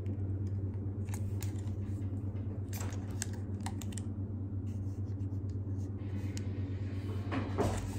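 Scattered small clicks and taps from handling a Canon G7X Mark II compact camera as its flip screen is tilted up, fingernails clicking on the body. A steady low hum sits underneath.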